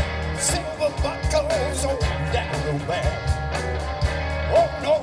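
Live rock and roll band playing a passage without lyrics: drums, steady bass, and a lead line that bends up and down in pitch.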